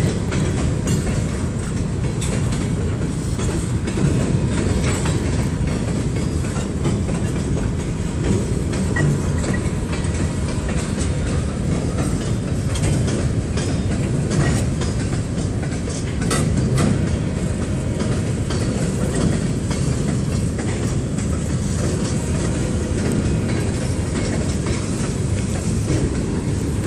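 Kansas City Southern de México freight train of steel gondola cars rolling past: a steady low rumble of wheels on rail with scattered clicks and knocks.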